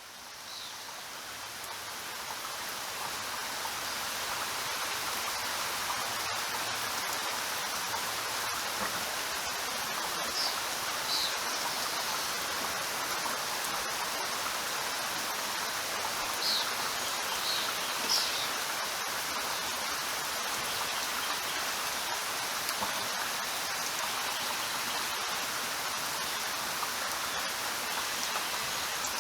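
Steady rain falling, fading in over the first few seconds and then holding an even hiss. A few brief high chirps stand out in the middle.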